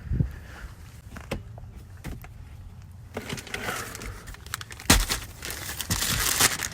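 A few sharp knocks and clicks, then close rustling and crackling with more clicks from about three seconds in, with one loud knock near five seconds.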